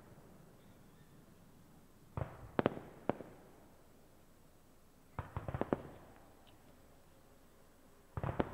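Aerial fireworks shells bursting in three volleys about three seconds apart, each a quick cluster of sharp bangs and cracks with a short echo after.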